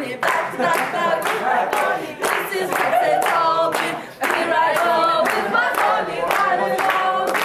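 A group of voices singing a circle-dance song together, with hand clapping on the beat, two or three claps a second.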